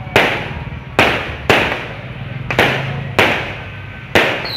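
Fireworks going off: about seven sharp bangs at uneven intervals, each trailing off briefly, with a falling whistle starting near the end.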